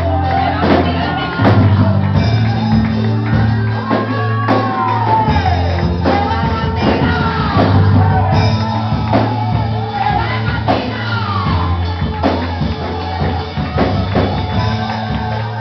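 Live church band music, with held bass notes and frequent drum strokes, and a voice singing and shouting over it in a large hall.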